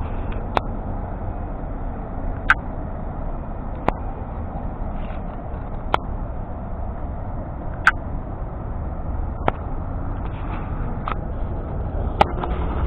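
Steady low rumble of road traffic going by. A sharp click cuts through every one to three seconds.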